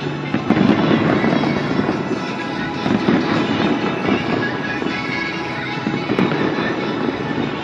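Fireworks going off in quick succession, a dense run of crackling bursts with louder swells about every second, over music.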